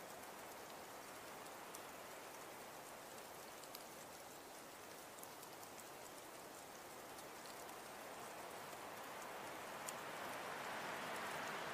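Falling wet snow pattering on surfaces: a soft, steady hiss dotted with faint ticks, swelling slightly near the end.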